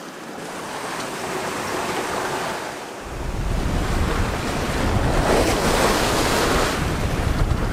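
Open-ocean waves and water rushing past a sailboat under way, a steady wash of noise. About three seconds in, a strong deep rumble of wind on the microphone sets in and stays.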